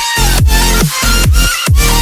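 Background electronic dance music with a steady thumping beat, about two and a half kicks a second, and synth chords, between sung lines.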